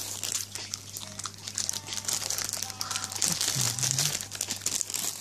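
Thin clear plastic packaging bag crinkling as it is handled, a dense run of quick crackles.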